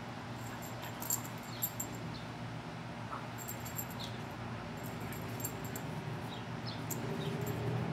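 Pit bull growling low and steady while tugging on a rope toy, louder near the end, with faint high clicks now and then.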